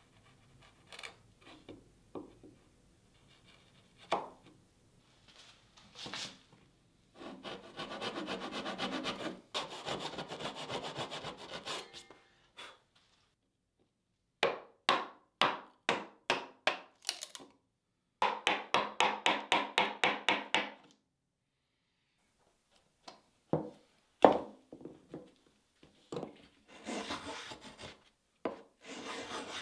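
Stopped dado being cut by hand in plywood: a handsaw sawing in several runs of quick back-and-forth strokes, with scattered single knocks between the runs and one sharp knock about two-thirds of the way through.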